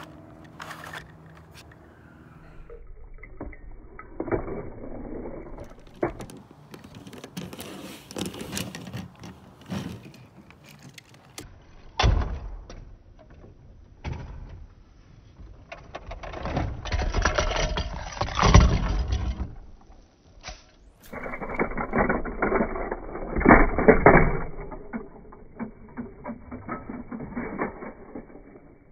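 Plastic toy playsets and die-cast toy cars being handled, with clattering and rattling in several separate stretches and a sharp knock about twelve seconds in.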